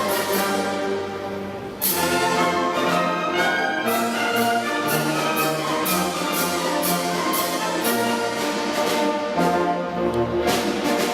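Orchestral music led by brass instruments, with a loud new entry about two seconds in.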